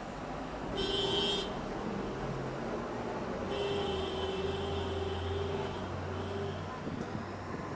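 Road traffic with a vehicle horn honking twice: a short toot about a second in, then a longer, steady blast of about three seconds, over a low engine rumble and traffic noise.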